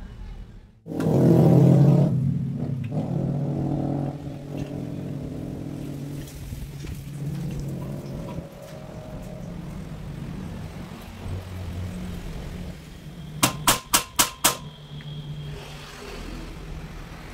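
An engine running steadily, loudest in the first couple of seconds after it comes in. About thirteen and a half seconds in, five quick sharp metallic clinks in a row ring out over it.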